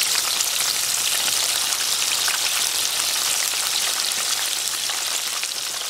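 Onions sizzling and crackling in a deep fryer of hot oil at about 350°F, just after the basket was lowered in. The crackle is dense and steady throughout.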